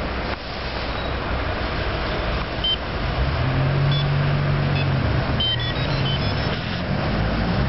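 Street traffic noise, with a vehicle engine running close by for a couple of seconds around the middle, and a few faint short high beeps.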